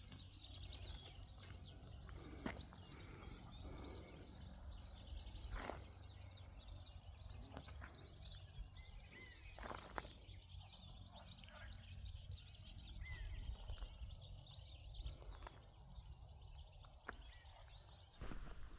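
Faint open-air ambience: a few scattered bird chirps over a low, steady rumble, with several soft clicks.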